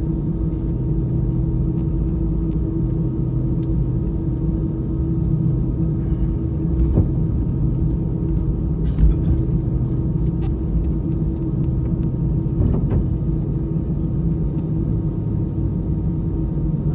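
Airbus A319's CFM56-5A engines idling as the airliner taxis to line up for take-off, heard inside the cabin as a steady low rumble with a steady hum. A few faint clicks are heard now and then.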